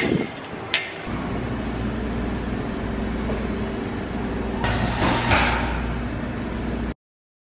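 Steady low machine hum of a shop's equipment, with a sharp click about a second in and a short clattering swell around five seconds in; the sound cuts off suddenly near the end.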